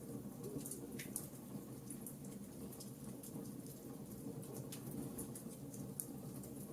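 Wood fire burning in a fireplace, crackling with frequent small irregular pops over a steady low rumble.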